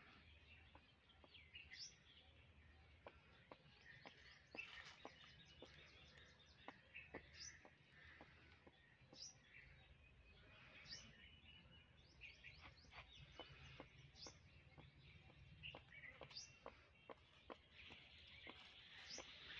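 Near silence outdoors with faint bird chirps: short falling high calls every couple of seconds, with scattered light clicks and a low hum beneath.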